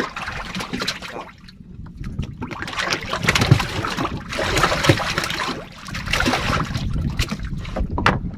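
Water splashing against a small wooden fishing boat, with a sharp splash right at the start as a hooked pike conger (ikan malong) thrashes at the surface. Further stretches of splashing and sloshing follow over a low wind rumble on the microphone.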